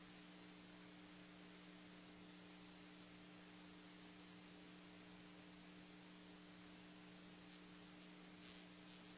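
Near silence: a faint steady electrical hum with a low hiss from the recording chain, unchanging throughout.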